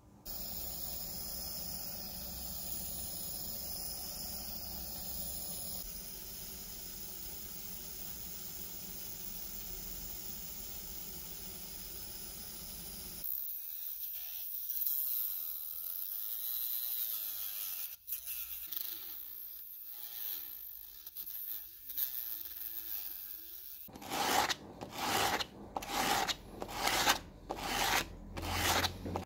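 A steady machine whirr for the first half. Then a cutting disc in a drill chuck cuts through a 2 mm plexiglass sheet, its pitch wavering. Near the end, about seven rhythmic strokes as the plexiglass edge is rubbed back and forth on sandpaper.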